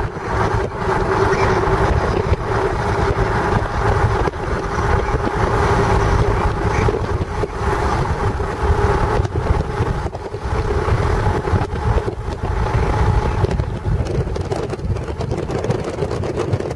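A vehicle driving, heard from inside: steady engine and road drone with a constant hum, and wind rushing on the microphone.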